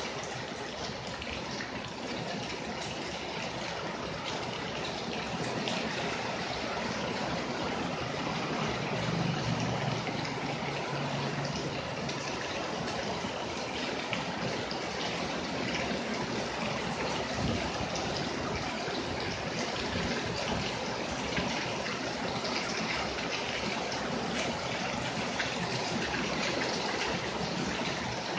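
Steady rain falling on paving and roofs, splashing into puddles on the lane.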